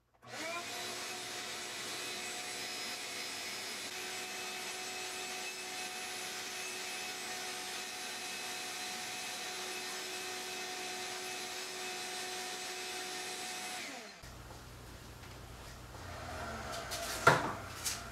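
Shop vacuum starting with a rising whine, running steadily while sucking sawdust off a concrete floor, then switched off about fourteen seconds in and winding down. A single sharp knock comes near the end.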